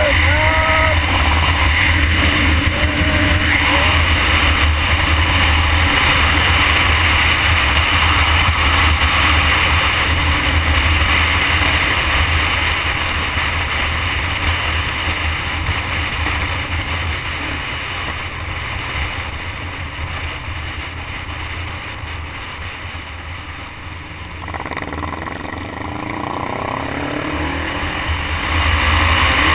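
Wind rushing over the microphone of a motorcycle-mounted camera at highway speed, a heavy steady rumble with the motorcycle's engine running beneath it. The wind eases for a while, then about three-quarters of the way in the engine's pitch rises and the noise builds again as the bike accelerates.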